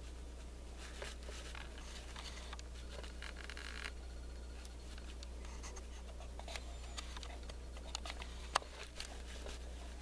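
Faint scattered scratching and clicking over a steady low hum, with one sharp click about eight and a half seconds in.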